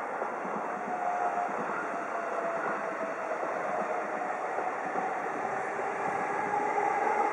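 Yamanote Line E231-500 series electric train approaching and running past below on the rails, growing slightly louder, with a faint whine that climbs in pitch toward the end.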